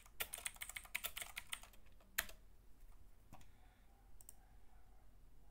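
Computer keyboard being typed on: a quick run of keystrokes for about the first two seconds, then one louder key press, followed by two separate single clicks.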